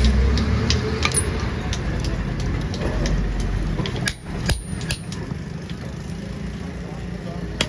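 Forging workshop noise: a steady low machine rumble with scattered sharp metal clicks and knocks. The rumble eases about four seconds in.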